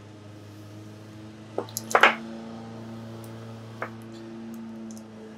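A few short clicks and knocks from a laptop battery pack of 18650 cells being handled and set down on a workbench. The loudest cluster comes about two seconds in and a single click near four seconds, over a steady low hum.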